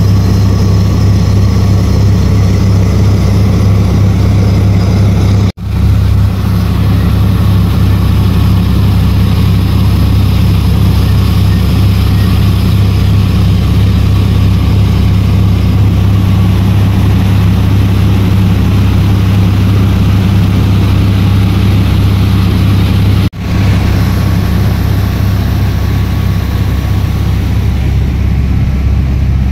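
Fibreglass passenger boat's engine running at a steady cruising speed, a loud, even drone with a low hum. It breaks off for an instant twice, about five seconds in and again near the end, then carries on unchanged.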